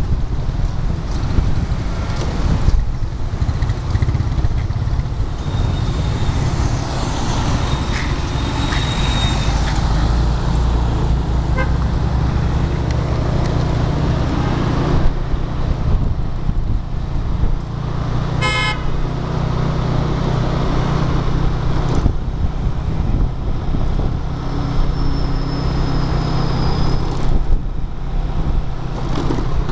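Motorbike engine running and wind rumbling on the microphone while riding in street traffic, with a short horn toot about two-thirds of the way through.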